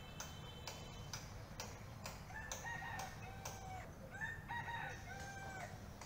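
A rooster crowing twice in the middle, each crow a drawn-out call with long held notes, over a regular ticking about twice a second.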